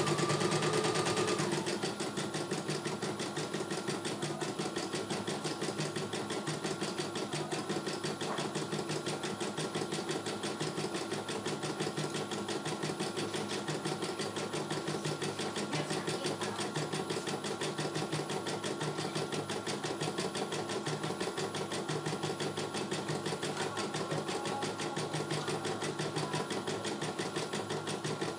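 CNY E900 computerized embroidery machine stitching a design, its needle running in a rapid, steady rhythm as the hoop carriage moves. For the first second and a half it is louder, with a whine that then stops.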